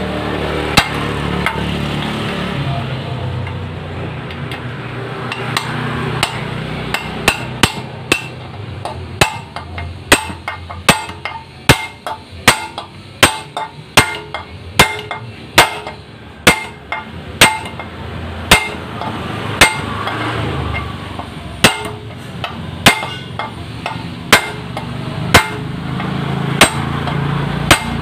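Hammer blows on metal, driving a new replacement bearing into place in a scooter's CVT assembly. There are a few sharp strikes at first, then a run of about two a second, slowing to about one a second near the end.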